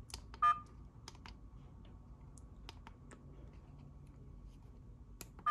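Buttons on a BIUONE dash cam being pressed: a scatter of light clicks, two of them with a short electronic beep from the camera, one about half a second in and one at the end.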